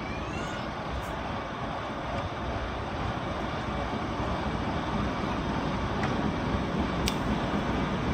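Railway running noise, a steady low rumble of wheels on rail, growing slowly louder as a Class 73 electro-diesel locomotive comes alongside the coach. Two sharp clicks, about a second in and near the end.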